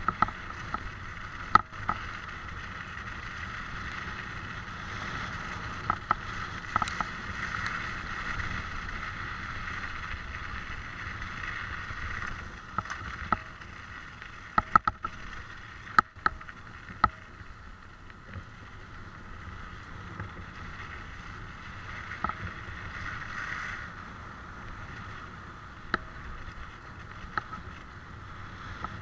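Wheels rolling over a frozen, snow-dusted dirt track: a steady hiss with sharp knocks and rattles at irregular intervals as they go over bumps.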